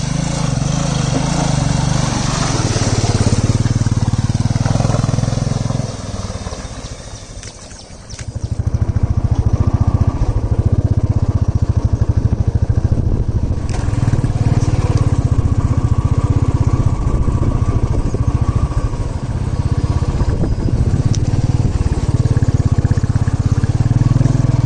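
Motorcycle engine running as the bike rides through a shallow stream, with water splashing over the first few seconds. After a short drop about six to eight seconds in, the engine is heard close up from on the bike, running steadily under load on a muddy dirt track.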